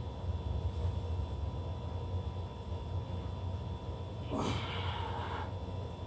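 A man's heavy breath out under the strain of a bench-press set, once, about four seconds in and lasting about a second, over a steady low hum.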